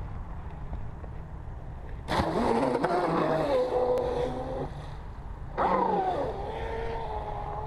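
Radio-controlled hydroplane race boat's motor whining at full throttle in two runs: it starts about two seconds in, settles to a steady tone and cuts off, then comes back near six seconds, starting high and dropping in pitch before holding steady. Wind rumbles on the microphone before the first run.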